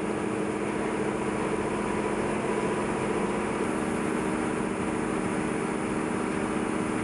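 Cotton-mill yarn winding and spinning machinery running: a steady mechanical hum with several held low tones under an even hiss.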